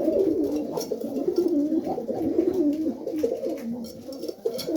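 Several Serbian Highflyer pigeons cooing together in a small loft, a steady chorus of low, overlapping warbling coos.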